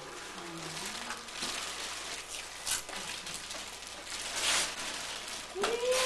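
Wrapping paper rustling and crinkling a few times as a present is unwrapped, with faint voices behind it.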